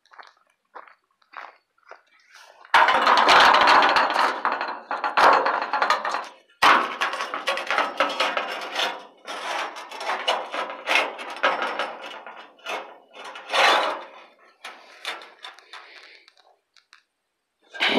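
Thin plasma-cut steel sheet being handled with a gloved hand and pressed against a pickup's body, scraping, rustling and clinking. It starts about three seconds in and goes on in uneven spells.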